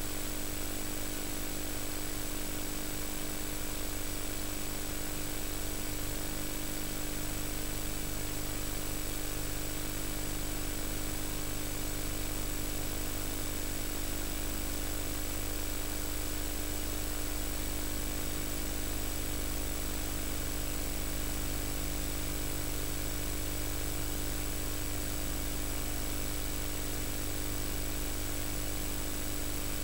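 Steady hiss with a constant electrical hum and buzz and no other events: the unused audio track of a VHS tape recording.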